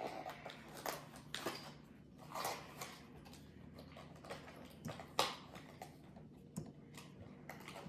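Small plastic building-kit pieces being handled and sorted: scattered light clicks and rustles, with a sharper click about five seconds in.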